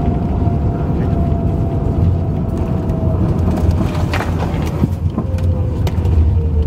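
Cabin noise of an Airbus A350 on its landing rollout: a steady low roar of the aircraft decelerating along the runway, with a thin whine that slowly falls in pitch as it slows. A brief sharper sound comes about four seconds in.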